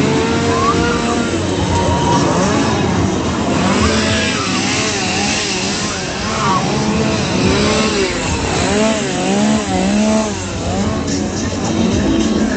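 A small engine revved up and down over and over in quick rising-and-falling surges, with the noise of a crowd underneath.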